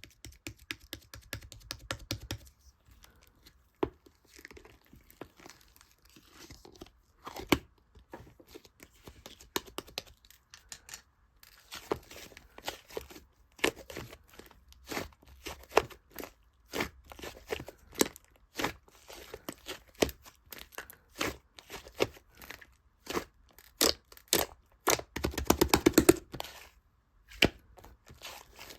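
White slime being squeezed, folded and stretched by hand, giving irregular runs of small sharp clicks and pops, densest and loudest about 25 seconds in.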